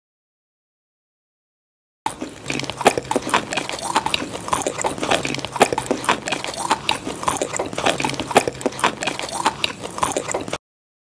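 Close-miked mukbang eating sounds: wet, crunchy chewing and biting with dense, irregular mouth clicks. They start suddenly about two seconds in, after dead silence, and cut off abruptly just before the end.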